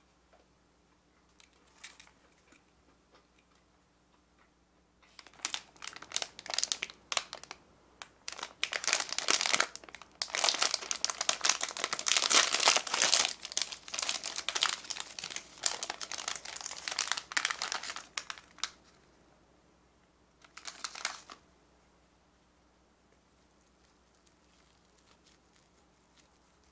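Thin plastic pastry wrapper crinkling loudly in dense bursts as hands handle it and tear it open for about fourteen seconds. One more short crinkle follows a couple of seconds later.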